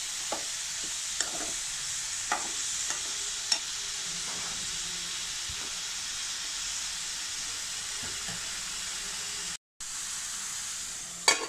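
Chopped banana stem stir-frying in a metal pan with a steady sizzle, a metal spatula knocking and scraping against the pan a few times in the first few seconds. The sound drops out briefly near the end, then there is one louder clack.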